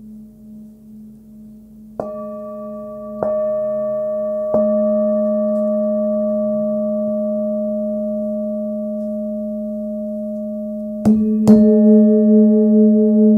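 Forged Nepalese singing bowl, 18.5 cm, with its low tone near 213 Hz (G#/A), ringing with a slow wobbling pulse. It is struck three times about a second apart and rings on steadily with higher overtones above the low hum. It is struck twice more near the end, and the ring swells with a strong wah-wah beat.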